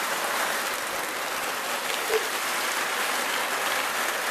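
Steady downpour of rain mixed with hail, falling hard and evenly on the ground and surfaces around.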